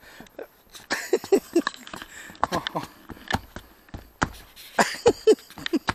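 Footsteps of rubber boots on the planks of a wooden footbridge, an irregular run of knocks, with rustling of waterproof rain-suit fabric and a couple of brief vocal sounds.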